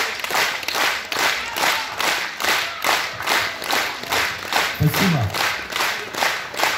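Theatre audience clapping in unison, a steady rhythmic beat of about three claps a second. About five seconds in, a voice calls out briefly over it.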